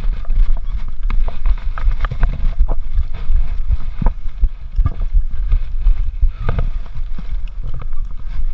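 Wind and handling noise on a body-worn GoPro's microphone: a steady low rumble with scattered short knocks and clicks.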